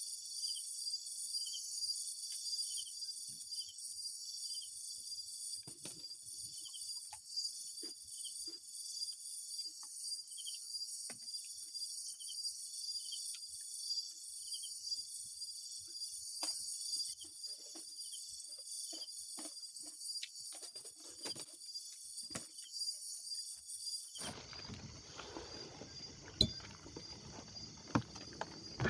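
Insect chorus: a steady high, shrill trilling with a repeating pulsed chirp, and scattered faint ticks and taps. About 24 seconds in the pulsed chirp stops and a broader hiss sets in, with a few sharp knocks near the end.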